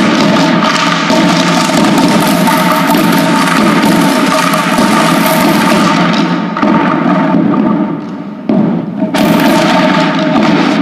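A group of children drumming together on upturned white plastic buckets: a loud, dense clatter of hits. The playing thins and drops back briefly about eight seconds in, then comes back in full.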